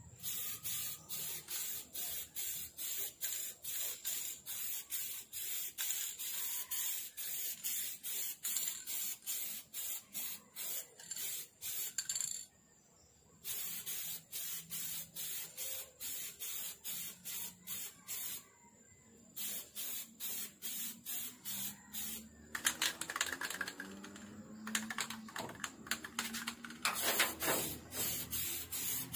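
Aerosol spray-paint can sprayed in quick short bursts, about two a second, laying thin coats of paint on a plastic motorcycle body panel, with two brief pauses. A low hum that rises and falls in pitch joins in under the spraying about three quarters of the way through.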